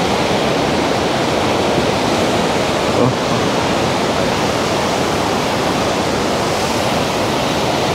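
White water of the Waikato River rushing through the narrow rock gorge of Huka Falls: a loud, steady rush of water that never lets up.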